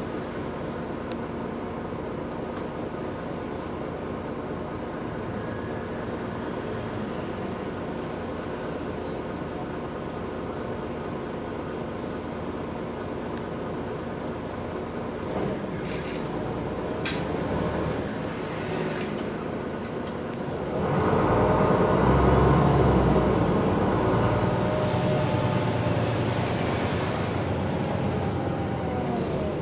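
MAN Lion's City G articulated bus heard from inside the cabin while driving: a steady engine and road hum, which grows louder about two-thirds through as the bus accelerates, with the engine note rising and falling.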